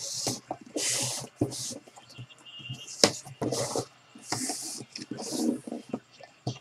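Box cutter slicing the tape seals on a cardboard box and the lid scraping open: a run of short hissing scrapes, with a sharp click about three seconds in.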